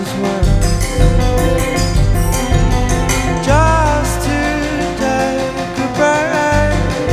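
Soundtrack music: a sung vocal with sliding notes over bass and a steady beat.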